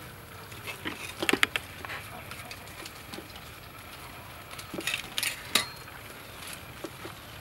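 Light taps and clinks on a stainless steel tray as sausages are laid into it by hand from a metal strainer, in a cluster about a second in and again around five seconds in.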